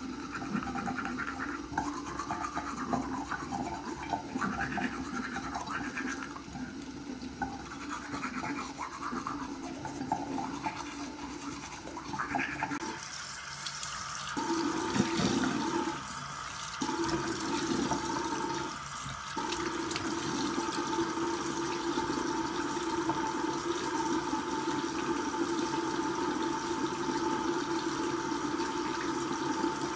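A toothbrush scrubbing teeth for the first dozen seconds or so. Then a bathroom sink tap runs steadily into the basin, briefly interrupted a few times, while the face is washed.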